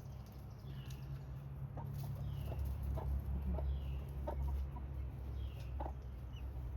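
Guinea keets peeping with thin falling peeps every second or so, with short soft clucks from their mother hen, over a steady low rumble.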